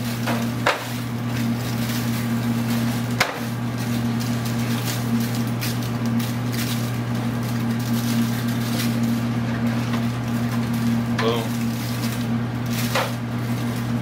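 A steady low electrical hum, with a few sharp clicks and crinkles now and then from a disposable aluminium foil pan as a seasoned bone-in ribeye is handled over it.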